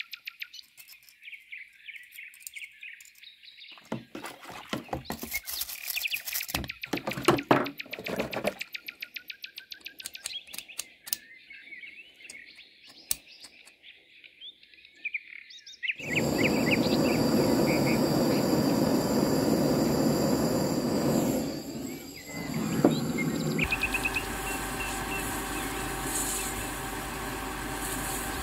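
Birds chirping behind water splashing as a small cast-iron bench vise is washed by hand in soapy water. At about the middle a loud, steady machine noise starts suddenly. Near the end a metal lathe runs steadily, turning a brass thrust washer.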